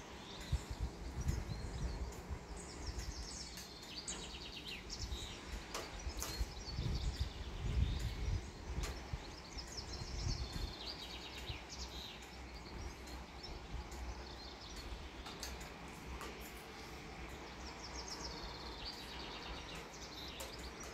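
Songbirds singing short, repeated trilled phrases over a low, uneven rumble of wind gusting on the microphone.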